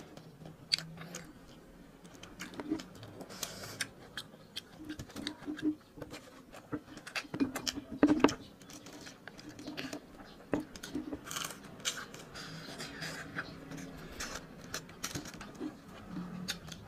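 Close-up eating sounds: chewing and crunching of crisp fried danggit (salted dried rabbitfish) and rice, with many small clicks and crackles as food is picked by hand from a foil-lined platter.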